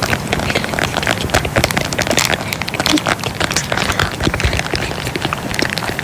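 Close-miked ASMR crinkling and tapping: a dense, steady run of small crackles and clicks.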